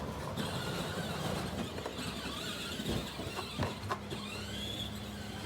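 Steady low hum of the ATV running, with thin high squeaks and two sharp knocks about three and three and a half seconds in as the new synthetic winch rope is worked through to the winch drum.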